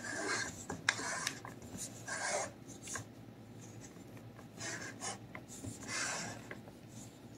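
Hands pressing a crumbly flour, butter and chopped-peanut crust into the bottom of a metal cheesecake pan: soft rubbing and scraping in several short spells, with a few light taps.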